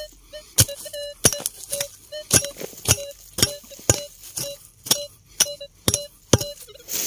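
Metal detector giving short, repeated beeps of one steady pitch over a buried target, which has read 91 on its display, while a metal digging tool strikes the ground about twice a second.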